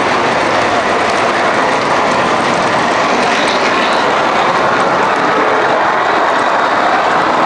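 MTH model subway train running along the track: a steady, even rumble of wheels and motor with a light mechanical rattle.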